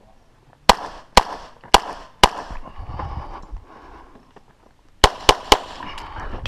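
Handgun shots from the shooter's own pistol: four shots about half a second apart, then after a pause of nearly three seconds a quicker string of three.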